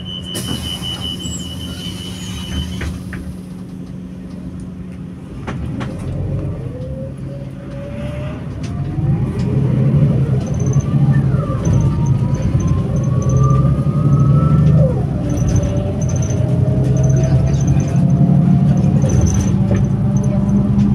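Mercedes-Benz Conecto O345 G articulated bus running, its engine getting louder from about five seconds in. A whine climbs in pitch over it and drops back twice, as the bus pulls away and gathers speed.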